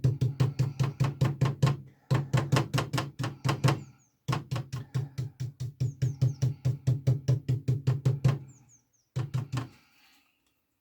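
A paintbrush stippling white acrylic paint onto an MDF horse cut-out through painter's tape: rapid dabbing taps, about six a second, in runs with short pauses, stopping near the end.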